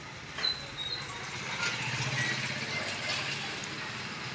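Small motorcycle engine running as it rides past and away down the lane, loudest about two seconds in. A sharp knock comes about half a second in.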